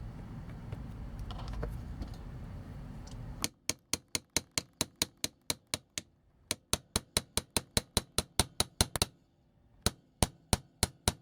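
Rapid, evenly spaced sharp clicks from a hard plastic toy part being worked loose, about five a second in runs with short pauses, after a few seconds of low rumbling handling noise.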